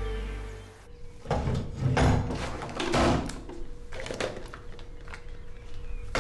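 A drawer is pulled open about a second in, then a hand rummages through the plastic tubs and wrapped packets of medical supplies inside it, with irregular knocks, clatters and rustling.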